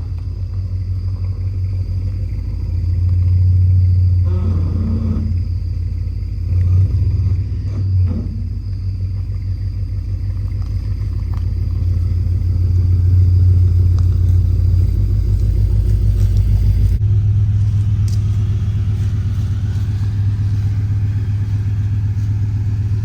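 Ford F-250 pickup's engine running at a steady idle, with two brief rising sweeps about four and eight seconds in and a shift in its low hum about seventeen seconds in.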